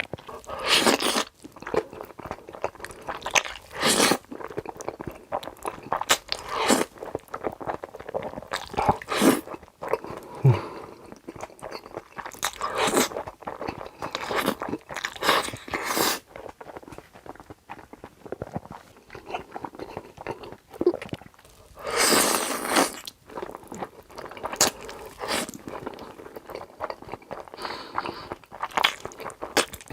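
Close-miked eating: big bites and crunchy chewing, going in irregular clusters of crackly strokes, with a long loud stretch of chewing about two-thirds of the way through.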